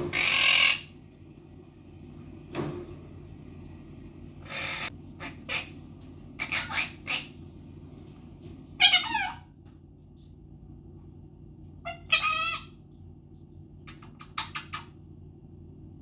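Blue Quaker parrot (monk parakeet) making short squawks, chirps and clicking noises in scattered bursts, with two longer warbling calls in the middle. It opens with a loud burst of noise in the first second as the bird flaps its wings.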